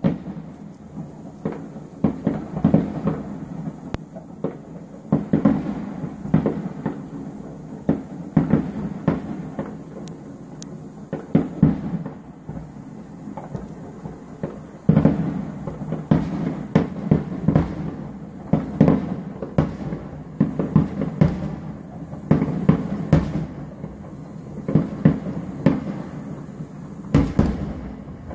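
Aerial firework shells bursting, a long irregular series of bangs, often several a second, each with a rumbling echo; the heaviest clusters come about fifteen seconds in and near the end.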